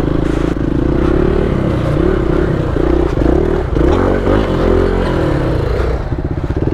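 Off-road motorcycle engine running at low speed on slippery ground, the throttle opened and closed so its pitch rises and falls. Near the end it settles into an even, fast chug.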